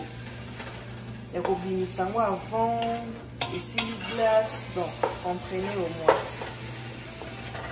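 Chopped cassava leaves (matembele) frying in palm oil in a pot and being stirred with a wooden spatula: a low sizzle with a few sharp knocks of the spatula against the pot. A voice is heard on and off.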